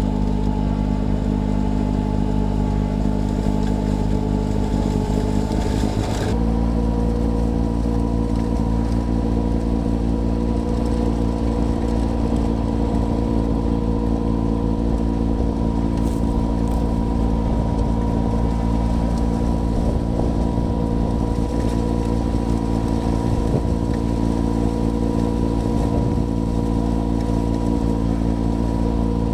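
John Deere 6110R tractor's four-cylinder diesel engine running steadily under load, driving a snowblower, heard from inside the cab. The engine note shifts slightly about six seconds in, then holds steady.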